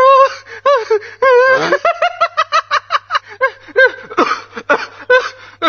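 A man's loud, wavering vocal outbursts in quick pulses, without words, over a faint steady hum.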